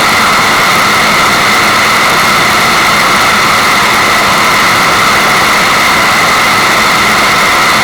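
Steady rushing-water white noise, loud and unchanging, with a hiss strongest around the upper-middle range.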